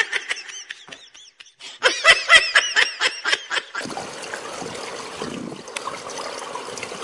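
A quick run of short, high-pitched calls, each bending up and down in pitch, about five a second at their busiest. About four seconds in, a steady watery hiss takes over.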